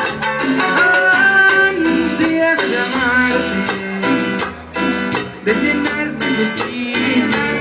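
Live Latin dance band playing, with guitars over a steady percussion beat, heard from the audience.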